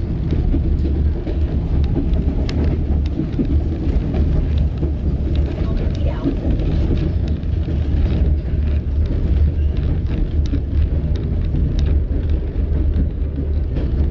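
White Pass railroad passenger train running along the track: a steady, heavy low rumble with many sharp clicks and clacks from the wheels and cars.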